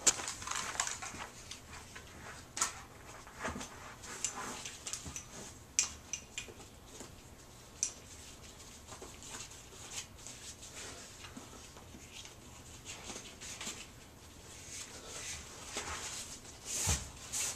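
Movement noise from someone exercising on TRX suspension straps: scattered short rustles and light clicks, with a louder rushing noise a little before the end.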